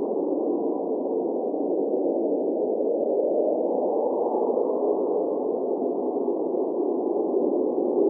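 Cold blizzard wind blowing steadily: an even low rushing with no high hiss, growing a little fuller about halfway through.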